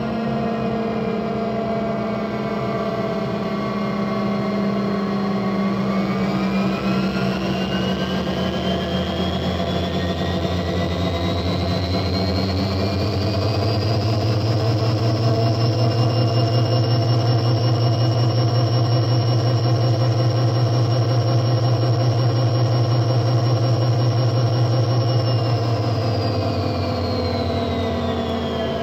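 A motor running with a whine that rises in pitch over several seconds, holds steady for about ten seconds, then falls away near the end.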